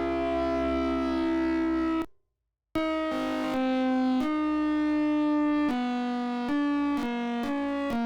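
Prototype electronic siren sounding synthesizer-like tones: a held chord for about two seconds, a short gap, then a series of chords that jump from pitch to pitch without gliding, one held longer near the middle.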